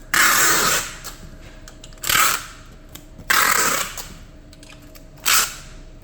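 A hand rubbing and pressing a sticker label down onto a cardboard shipping box: four short scraping strokes, each under a second.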